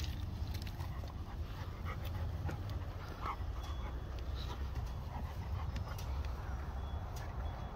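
A six-month-old Caucasian Shepherd puppy panting and sniffing close by, over a steady low rumble, with a few faint clicks.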